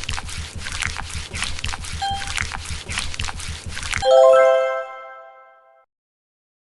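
Background music with a steady beat, cut off about four seconds in by a loud, bright chime that rings on and fades away.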